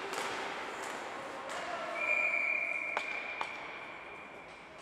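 Ice hockey rink: a referee's whistle sounds one long steady high note about two seconds in, fading after a few seconds. Several sharp clacks of stick and puck on the ice come through it, under the hollow sound of a large hall.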